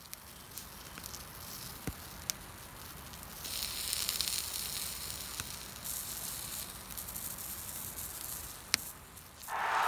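Food sizzling on a hot steel griddle over a wood campfire, with the burning firewood giving a few sharp snaps and pops. The sizzling hiss grows louder about three and a half seconds in and stays up until near the end.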